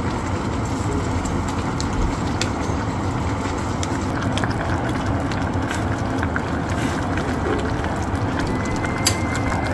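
Spicy noodle stew (ramyeon with kimchi and spam) boiling hard in a stainless steel pot on a gas stove: a steady rushing hiss with many small bubbling pops, and one sharp click about nine seconds in.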